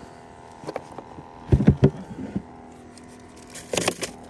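A few short knocks and clatters in a small inflatable boat, the loudest cluster about a second and a half in and another near the end, over a faint steady hum.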